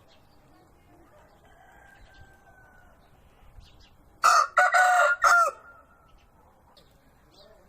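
Rooster crowing once, about four seconds in: a loud cock-a-doodle-doo of a few broken syllables lasting just over a second.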